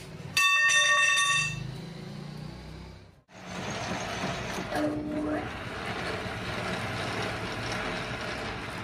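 A long steel pipe rings loudly as it is moved with its end on a concrete floor. After a short break, a metal lathe runs steadily with its chuck spinning a steel pipe.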